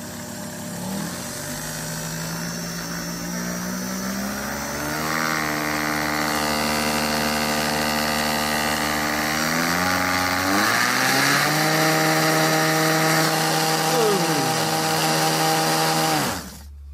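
Small electric motor from a handheld mixer running at speed, spinning a washing-machine pump, with a steady whine. The pitch rises about five seconds in and again about ten seconds in as the speed control is turned up. It cuts off suddenly near the end.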